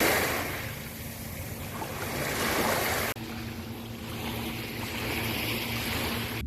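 Seaside water noise with wind on the microphone, steady and rushing, with an abrupt cut to a second stretch of the same kind of sound about three seconds in.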